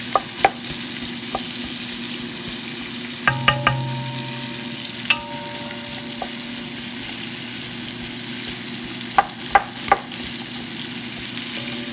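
Sliced onions and peppers frying in oil in a metal pot, a steady sizzle, stirred with a wooden spoon that knocks sharply against the pot now and then, with three loud knocks in quick succession near the end.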